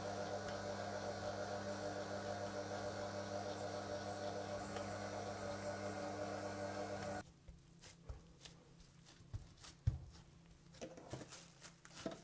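SMEG stand mixer's motor running steadily while kneading shortcrust dough, with a steady hum, cutting off suddenly about seven seconds in. After it stops there are only quiet scattered clicks and rustles.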